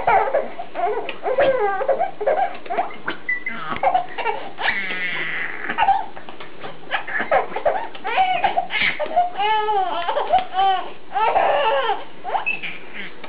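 A baby laughing in a string of short, pitched vocal bursts, with a run of rising-and-falling calls about ten seconds in.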